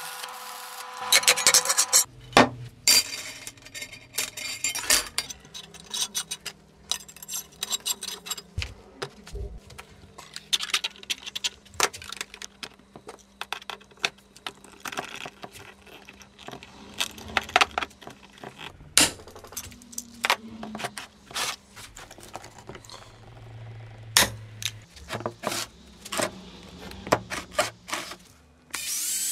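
Perforated steel strapping rattling and clicking as it is handled and wrapped around a stainless steel tube, with scattered knocks of metal against metal and the wooden workbench.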